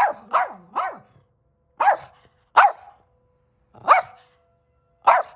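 A dog barking in short, sharp barks, about seven at uneven spacing, three in quick succession at the start. The dog is upset by emergency sirens.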